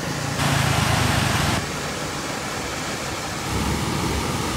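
Muddy floodwater rushing and churning through a ravine channel under a bridge, a steady noisy rush of water, with a louder hiss lasting about a second near the start.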